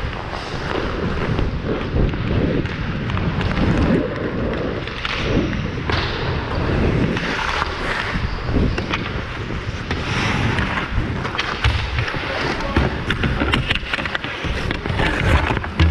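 Ice hockey play heard from a helmet camera: skate blades scraping and carving the ice, with a run of stick clicks and knocks against the puck and boards near the end.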